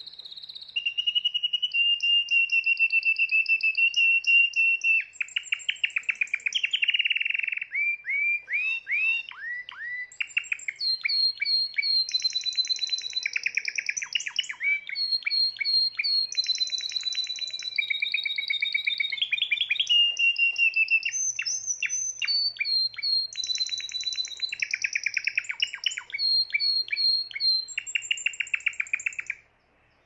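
A Spanish Timbrado canary singing one long, unbroken song of rapid trills and rolls, with a run of quick falling slurred notes partway through. The song stops about a second before the end.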